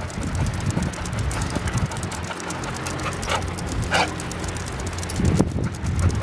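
Pit bull-type dogs trotting on leash over brick paving, their paws and claws tapping quickly, with a dog giving two short high yips about three and four seconds in.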